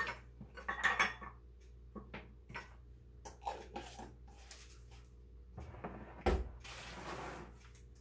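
Kitchen handling sounds: small containers and jars knocking and clinking on a countertop, with a brief rattle about a second in and a sharp knock about six seconds in, over a faint steady hum.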